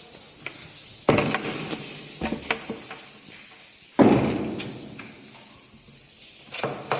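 Two loud bangs about three seconds apart, each ringing on briefly, with lighter knocks and clicks between them.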